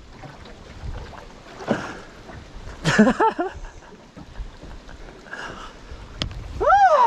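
Wind and water noise around a small open fishing boat. A short vocal cry comes about three seconds in, and near the end there is a high call that rises and then falls in pitch.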